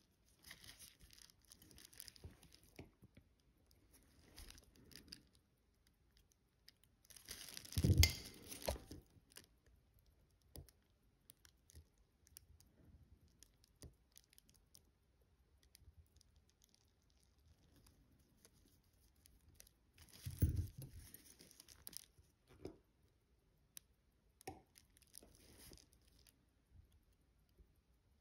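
Faint small clicks and scrapes of watchmaking tools and tiny parts being handled at the bench while assembling a watch's automatic-winding rotor post, with two louder handling noises about eight seconds in and again about twenty seconds in.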